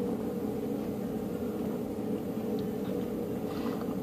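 Steady machine hum with a held tone, and a few faint gulps as the energy drink is chugged from the can.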